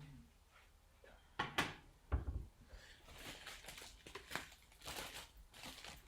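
Kitchen cupboard being opened and a plate taken out: two sharp knocks and a low thud, then a run of small clicks and rustling.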